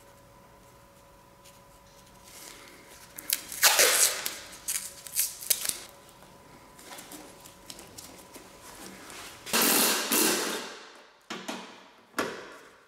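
Masking tape being pulled, torn and wrapped onto a wiring connector, with sharp clicks and scrapes. Near the end a cordless ratchet runs in two short bursts on a bolt, the first about a second and a half long.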